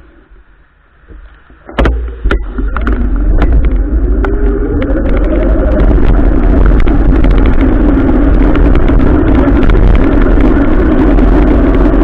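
Adventure motorcycle pulling away: after a few quiet ticks the sound jumps up suddenly about two seconds in, the engine note rises as it accelerates, then it runs steadily and loudly under a heavy rushing noise.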